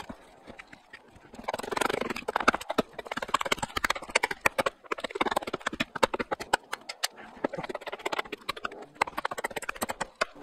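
Small hatchet chopping a V-shaped notch into a wooden stick. Quick, repeated blade strikes and shaving cuts, several a second, begin about a second and a half in.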